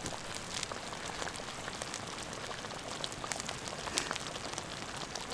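Wood fire crackling in a fire pit: a steady hiss with scattered small clicks and a few sharper pops, one of the loudest about four seconds in.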